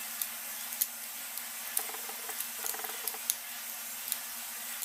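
Scattered small clicks and taps of a cell phone's plastic housing and tiny screws being handled and driven with a small screwdriver, over a steady background hiss.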